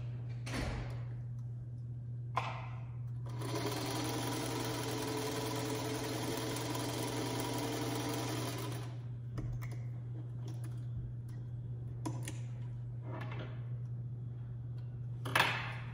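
Small black vintage electric sewing machine stitching a quarter-inch seam through quilt fabric strips: it runs steadily for about five seconds and then stops. Short swishes come before and after it, and a sharp knock near the end.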